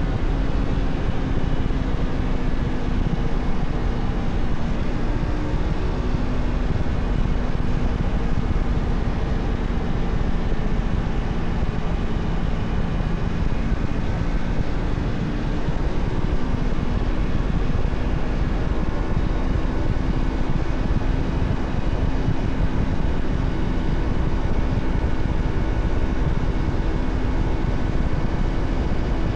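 Honda Shadow 125's small V-twin engine running steadily while riding at cruising speed, its pitch drifting a little with the throttle and easing briefly about halfway. Wind rumble on the microphone underneath.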